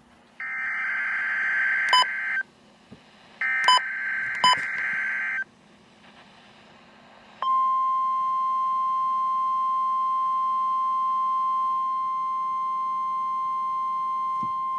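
NOAA Weather Radio Emergency Alert System weekly test. Two digital SAME header data bursts of about two seconds each, with a few sharp clicks over them. About seven seconds in, the steady 1050 Hz weather radio warning alarm tone starts and holds.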